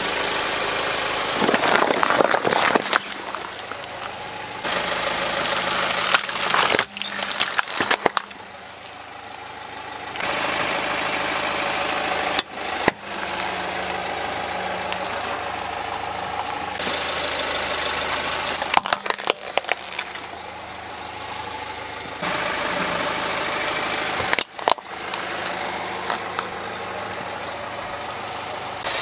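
Car engine idling while a tyre rolls onto small plastic toys and crushes them, with short bursts of cracking and crunching several times over.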